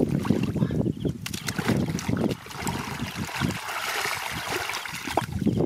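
Gloved hands churning and scooping through thick wet mud and shallow water: irregular squelching and sloshing, with a steadier wash of splashing for a few seconds in the middle.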